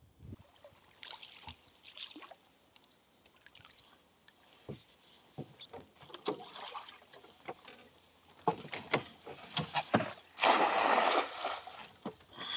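Cast net being gathered and readied in a wooden canoe, with scattered knocks and taps, then thrown: a loud splash of just under a second as the net lands on the water, about ten and a half seconds in.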